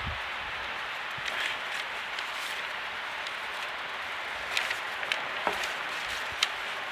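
Steady even hiss of classroom room noise, with scattered faint clicks and taps, a few of them a little louder between about four and a half and six and a half seconds in.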